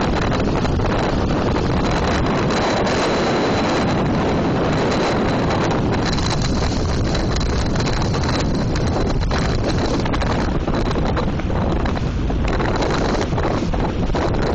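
Loud wind buffeting the microphone: a steady, heavy rush of noise with no let-up.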